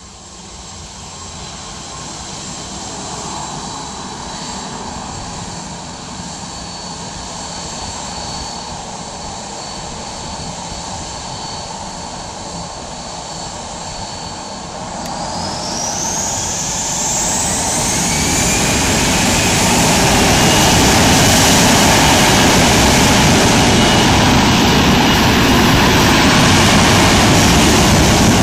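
Air Berlin Airbus A321's twin jet engines at low power with a steady whine. About halfway through they spool up for the takeoff roll: the whine rises sharply in pitch and the engine noise grows much louder, holding loud to the end.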